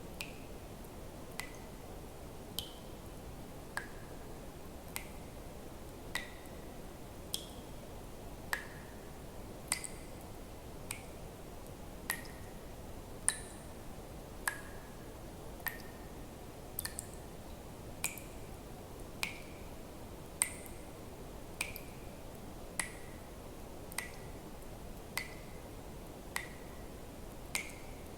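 Water drops falling one at a time, roughly one every second, each a sharp click with a short ringing plink, some higher-pitched than others, over a steady low hiss.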